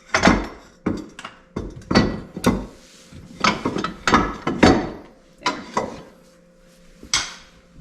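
Metal parts of a Sea-Doo jet pump's rear housing and propeller assembly clanking and knocking as they come loose and are pulled off. The sharp knocks are irregular and ring briefly, with a lull and then one last knock near the end.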